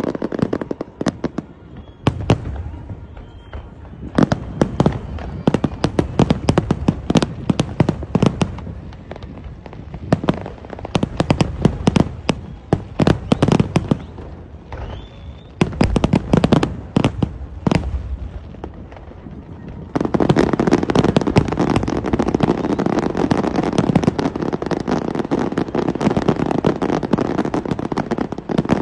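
Aerial fireworks display: clusters of shell bursts going off in quick succession, then about two-thirds of the way through a dense, unbroken barrage of bangs and crackle.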